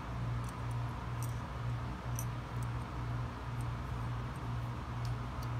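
Faint light clicks and scrapes of small steel pistol parts being handled as a bar is fitted into the trigger sub-frame, scattered irregularly over a steady low hum.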